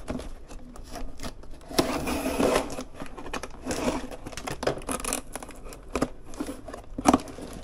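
A parcel being handled and unwrapped: packaging rustling and scraping, with a string of small clicks and knocks.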